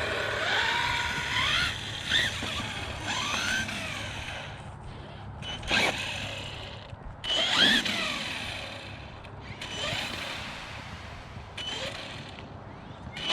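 Brushless motor of an Arrma Kraton EXB RC truck whining through a series of throttle blips, rising and falling in pitch about six times. The motor has just overheated and still sounds a little damaged.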